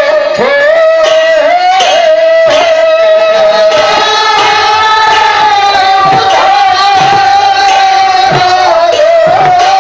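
Devotional kirtan: a group of voices holding long sung notes over khol drums played in a steady rhythm, some of the bass strokes bending in pitch.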